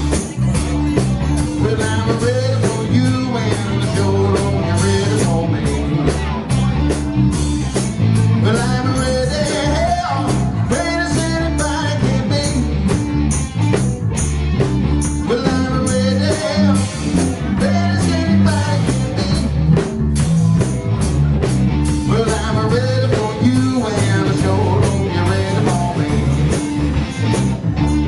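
A live band playing a blues-rock number, with drums, bass and electric guitar keeping a steady beat under a sung or played melody line.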